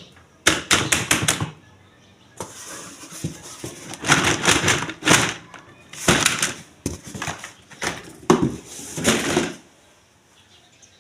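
Hands unboxing toys: packaging crinkling and rustling with taps and clicks. A quick run of clicks comes about half a second in, followed by several seconds of rustling in uneven surges.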